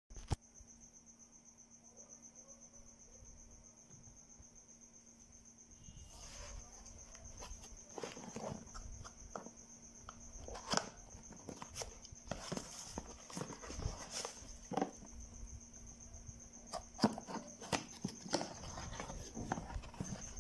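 Cardboard boxes being handled and opened by hand. From about six seconds in there are scattered clicks, taps and rustles of the box flaps and packing, over a steady high-pitched whine and a low hum.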